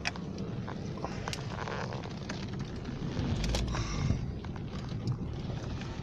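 Alfa Romeo car heard from inside the cabin while driving slowly on a snowy dirt track: a steady low engine and tyre rumble with scattered clicks and knocks.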